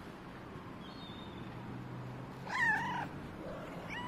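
Domestic cat meowing once, a short call with a rise and fall in pitch about two and a half seconds in.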